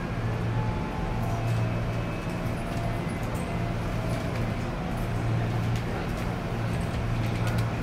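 Running noise heard inside a JR East 205 series 5000 subseries motor car, which has Toyo IGBT-VVVF traction equipment: a steady rumble of wheels on rail, with a low hum that swells and fades about every second and a half. Faint tones step down in pitch over the first few seconds.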